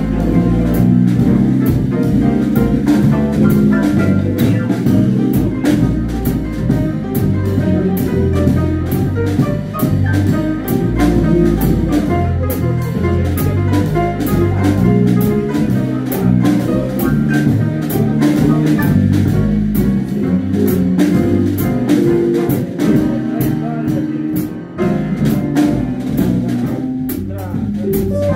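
Live small-group jazz: an upright piano, a drum kit played with sticks with cymbals keeping a steady beat, and a guitar, all playing together continuously.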